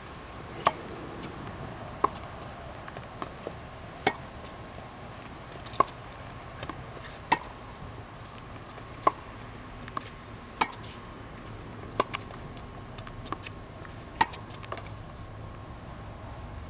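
A tennis rally on a hard court: the ball struck back and forth with rackets, making sharp pops about every one and a half seconds, with softer bounces between the hits.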